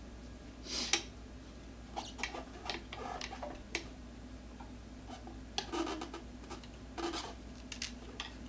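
Tire spoons levering a scooter tire's bead off its rim: scattered clicks, scrapes and rubs of tool on rim and rubber.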